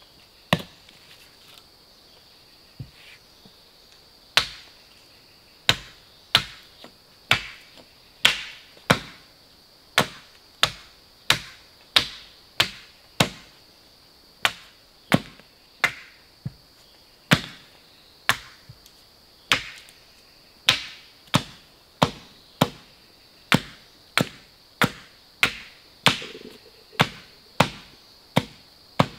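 A blade chopping into a wooden pole in sharp, regular strikes, a few scattered at first and then steady at about three every two seconds. A steady high insect drone runs underneath.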